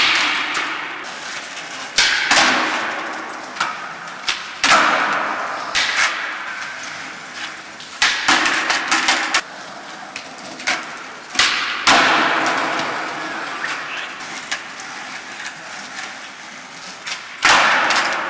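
Skateboards doing flatground tricks on concrete: sharp pops and clacks of the boards every few seconds, each followed by the hiss of the wheels rolling away across the smooth floor, echoing in an underground parking garage.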